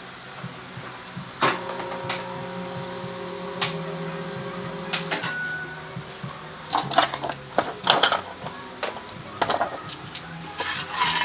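Metal tools clinking and knocking in a series of sharp hits, busiest in the second half, over a steady mechanical hum.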